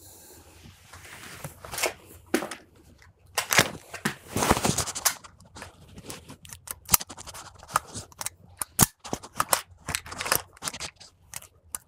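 AR-15 rifle being handled while a double-feed malfunction is set up: a string of sharp metallic clicks and clacks, sparse at first and coming thick and irregular in the second half, with a brief rattle around the middle.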